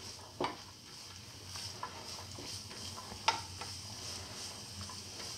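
Chopped onions sautéing in hot oil, sizzling steadily as a spatula stirs them around the pan, with a couple of sharper scrapes or taps about half a second in and about three seconds in.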